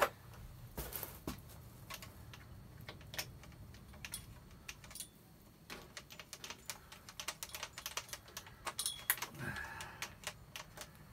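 Faint, irregular light clicks and taps of small metal parts being handled and fitted: a shaped washer, mounting bolt and mudguard clip going onto a steel bicycle frame at the rear brake.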